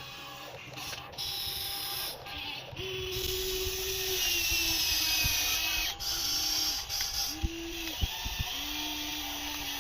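Whine of the small electric motors and gearboxes of a Huina 1594 radio-controlled excavator, running in short bursts of a second or two that start and stop, each at a slightly different pitch. A few sharp clicks come near the end.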